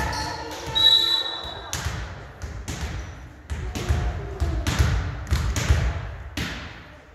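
A string of sharp thuds and claps echoing around a gymnasium, at times two or three a second, with voices of players and spectators in the background. The sound fades toward the end.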